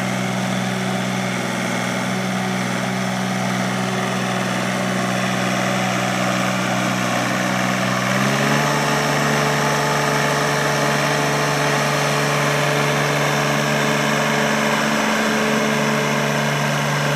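Engine of a remote-controlled bush hog running steadily. About halfway through, its note shifts to a different pitch and holds there.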